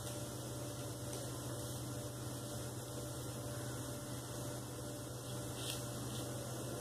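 Steady low electrical hum with a faint even hiss underneath.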